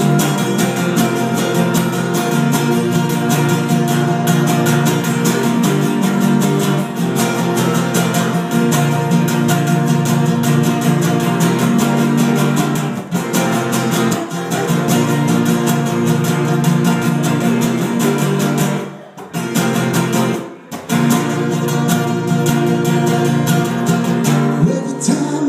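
Acoustic guitar strumming an instrumental break in a live song performance, with two short breaks in the playing near the end.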